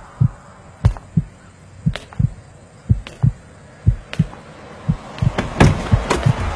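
Low double thumps like a heartbeat, a pair about once a second, with sharp clicks between them. The sound grows busier and louder in the last second or so.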